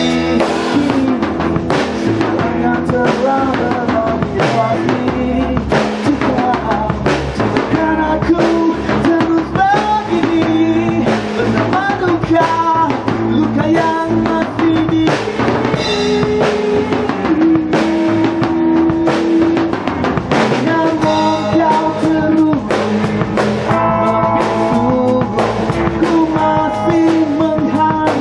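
A rock band playing live with a steady beat: drum kit with cymbals, electric bass and electric guitars together.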